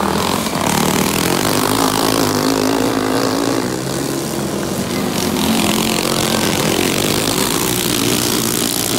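Several dirt-track racing go-kart engines running hard at racing speed, their pitch rising and falling as the karts lap the track.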